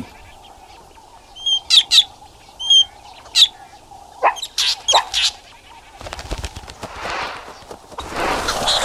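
Fork-tailed drongo giving a series of short, sharp alarm calls, a false alarm meant to send the foraging meerkats running. A few seconds of broad noise follow near the end.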